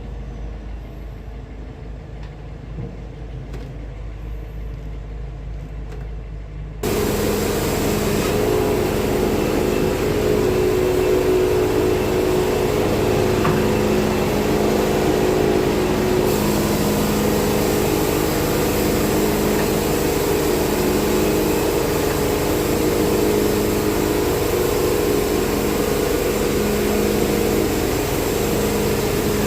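Wood-Mizer sawmill running steadily under power. The first several seconds hold only a low rumble; about seven seconds in, the sound jumps abruptly to the full, loud, steady drone of the mill, which holds without change.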